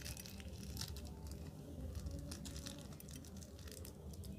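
Clear plastic piping bag crinkling as fingers squeeze and pull at it, with scattered small clicks of beads dropping into a glass dish, over a steady low hum.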